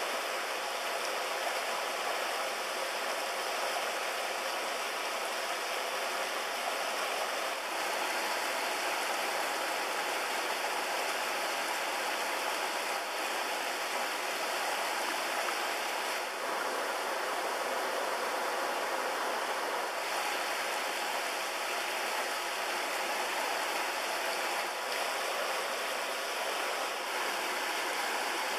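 Steady rush of flowing river water, an even hiss without breaks.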